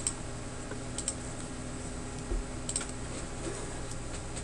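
A few faint, scattered clicks from a computer mouse and keyboard in use, over a steady low hum.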